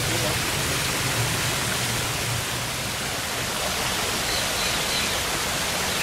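Steady rushing hiss of water pouring over a rock water feature.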